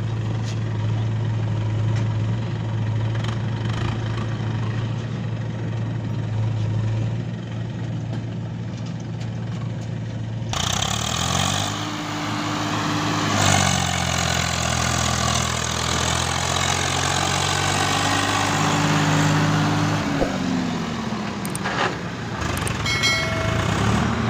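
Swaraj 744 FE tractor's three-cylinder diesel engine idling steadily, then revving up and easing back twice as it pulls the loaded trolley away, rising again near the end.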